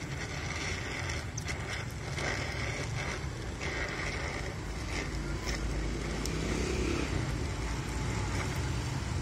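Oxy-acetylene welding torch flame hissing steadily while welding thin car-body sheet metal, with occasional short crackles.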